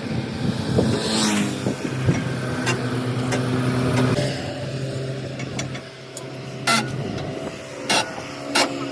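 A motor running with a steady hum, its pitch rising about a second in. Several sharp knocks come near the end.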